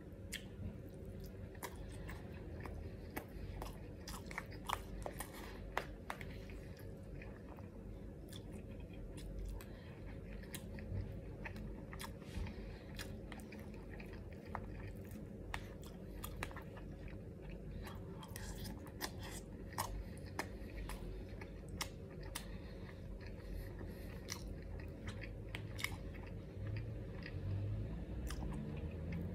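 Close-miked chewing and mouth sounds of a person eating nasi goreng pattaya, fried rice wrapped in omelette, with many scattered sharp clicks over a steady low hum.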